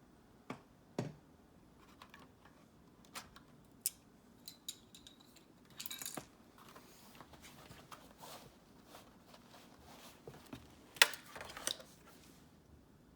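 Small hard objects being handled: a scatter of light clicks, taps and a brief rustle, with the loudest sharp clicks about eleven seconds in.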